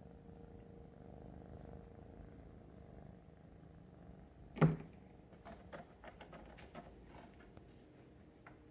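Kitten purring with a low, steady rumble. Halfway through, one loud thump, then a scatter of light clicks and taps.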